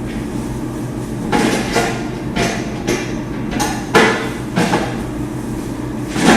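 A run of hard knocks and clunks, about eight in all and the loudest about four seconds in, as the metal parts of a U-turn bulk vending machine are handled, over a steady low hum.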